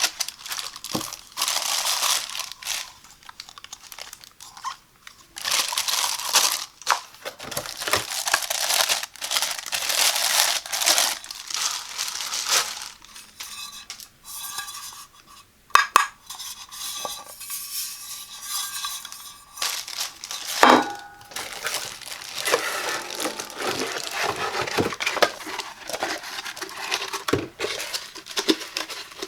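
Packaging being unwrapped: plastic and paper crinkling and tearing in long rustling stretches with pauses. Hard parts of a small rice cooker knock and clink twice, about halfway through and again a few seconds later, the first with a brief ring.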